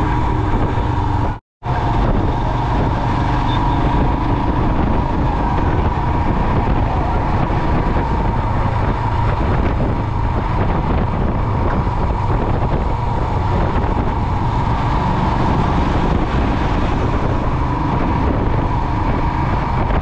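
Motorcycle under way at road speed: steady engine, road and wind noise, with a constant whine. The sound drops out completely for a moment about a second and a half in.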